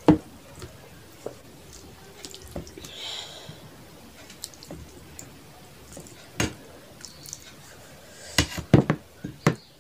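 Close-miked hand-eating sounds: short wet clicks and squelches of fingers in rice, curry and dal. A sharp knock comes right at the start as a drinking glass is set down on the table. Dal is poured from a glass bowl onto the rice near the end, giving a quick run of louder wet splats.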